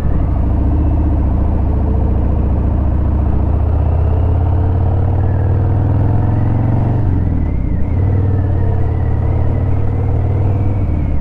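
2018 Harley-Davidson Fat Bob's Milwaukee-Eight V-twin running under way with a deep, steady rumble. It rises in pitch as the bike accelerates, then dips briefly about seven seconds in as with a gear change, and picks up again.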